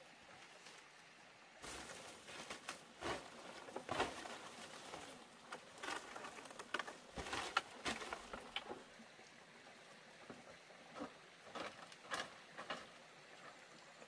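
Irregular rustling and crackling of leaves and twigs, in scattered clusters of short snaps.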